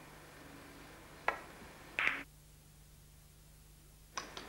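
Billiard balls being struck during a shot: a sharp click about a second in, then a louder click half a second or so later, and a few fainter clicks near the end.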